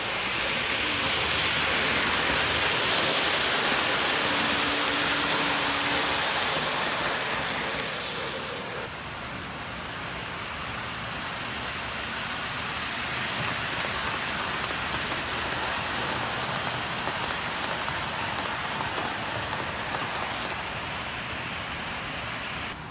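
O-gauge model trains running on the layout: a steady rolling rumble and whir of wheels and motors on the track, easing off about nine seconds in and building again.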